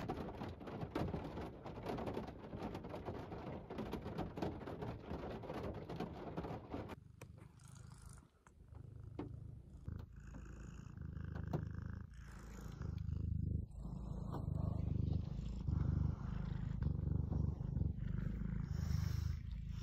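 A domestic cat purring close to the microphone, a low rhythmic rumble that comes to the fore about seven seconds in and grows stronger toward the end. Before it comes a stretch of crackly rustling noise.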